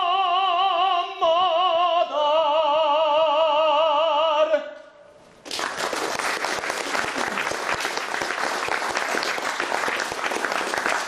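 A man's solo singing voice holds the last notes of a song with a wide vibrato, stopping about four and a half seconds in. About a second later an audience breaks into applause that carries on to the end.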